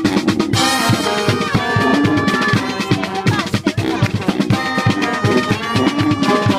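Street brass band playing a fast tune: horns playing held notes and runs over a busy drum beat.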